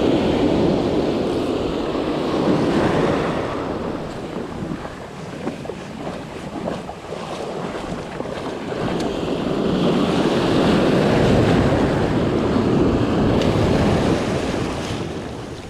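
Ocean surf washing up the beach as a steady rush of foamy water, swelling loud in the first few seconds and again about ten seconds in, easing off in between.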